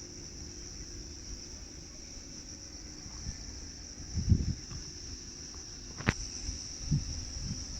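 Steady high-pitched insect chorus, like crickets, running without a break, with a few low thumps about four seconds in and one sharp click about six seconds in.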